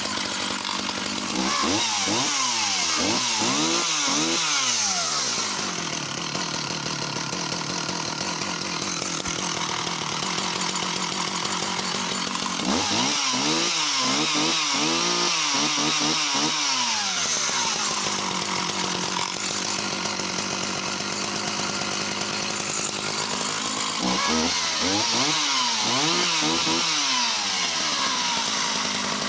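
Sachs Dolmar 110 two-stroke chainsaw running: a steady idle broken by three spells of the throttle being blipped, the engine revving up and down several times in each, near the start, around the middle and near the end.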